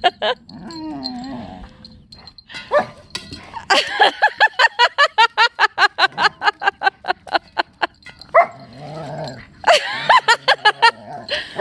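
German shepherd puppy vocalising in play: whines, low growls and a quick run of short yips, about five a second, through the middle.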